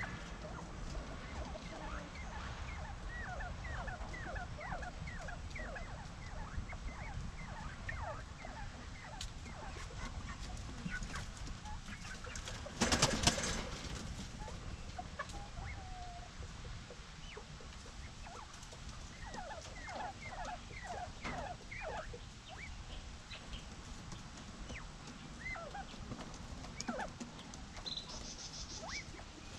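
Quail in a coop giving runs of short, quick chirping calls, with one louder call about thirteen seconds in.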